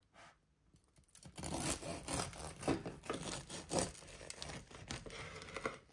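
A knife cutting down through the crisp, seed-topped crust and crumb of a gluten-free buckwheat and quinoa loaf: irregular crackling and scraping that begins about a second in.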